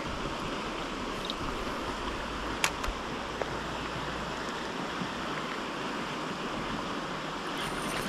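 Shallow river running over rocks and riffles: a steady rush of water, with one sharp click about two and a half seconds in.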